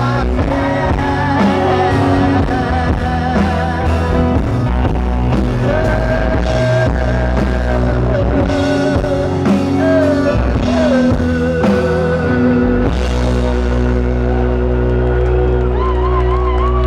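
Rock band playing live: drums, bass and electric guitar, with a wavering lead line, sung or played, over them.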